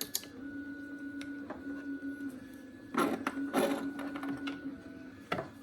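3D printer's stepper motors whining in steady tones that stop and restart every second or so as the print head moves. Short clatters of small parts being handled about three seconds in and again just after.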